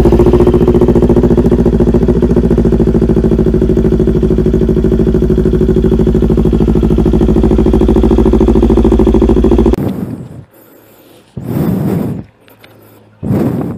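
Kawasaki Ninja 400 parallel-twin engine idling through a newly fitted SC Project aftermarket exhaust, loud and steady right after start-up. It stops abruptly about ten seconds in.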